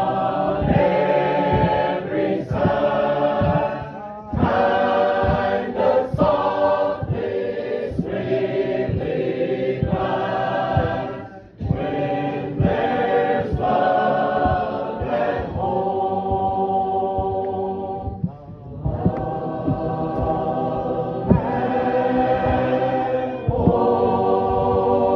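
A group of voices singing a hymn together in long phrases, with brief pauses between lines.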